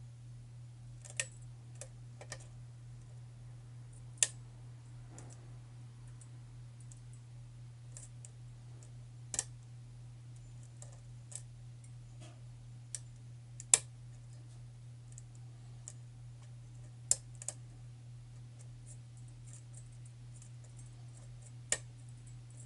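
Metal lock pick clicking and ticking against the pin tumblers inside a challenge lock with a tight paracentric keyway, about a dozen sharp, irregular clicks as pins are probed and set, over a steady low hum.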